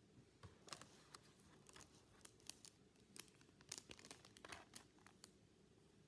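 Faint, irregular crinkling and crackling of a Pokémon card booster pack wrapper and cards being handled.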